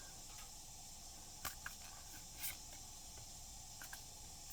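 Faint handling noise of Pokémon trading cards being slid and shuffled, with two brief swishes near the middle, over a steady low hiss.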